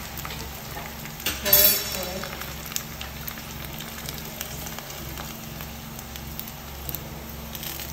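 Prawn crackers frying in a pan of hot oil, a steady light sizzle. Metal tongs click now and then as they move the crackers, with a brief louder sound about a second and a half in.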